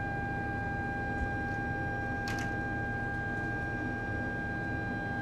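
Shipboard machinery on a research vessel's deck giving a steady whine over a low rumble. A short hiss comes about two seconds in.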